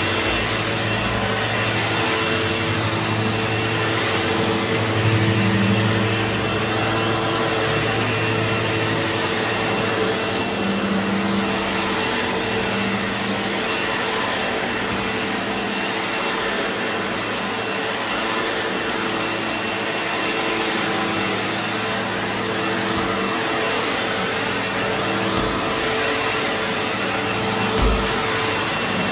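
Upright vacuum cleaner running over carpet: a steady motor drone with a thin high whine. There is a short low bump near the end.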